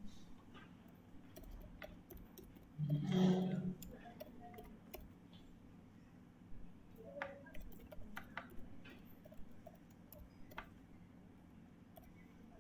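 Scattered computer keyboard keystrokes and mouse clicks while a username and password are typed in. About three seconds in there is a louder, short low-pitched sound lasting about a second.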